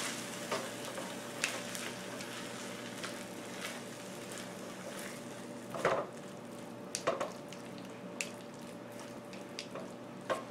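Ground chicken and creamed spinach sizzling in a nonstick frying pan over medium-low heat, stirred with a silicone spatula. The sizzle is a steady hiss, broken by a few short scrapes and taps of the spatula against the pan.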